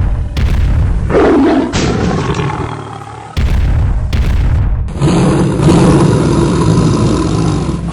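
Tiger roaring and growling: a cartoon sound effect in two loud stretches, with a quieter dip a little past the middle.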